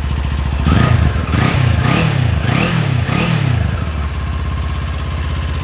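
Kawasaki Ninja 400's parallel-twin engine through its stock exhaust. It idles, is blipped several times in quick succession, and settles back to a steady idle about four seconds in.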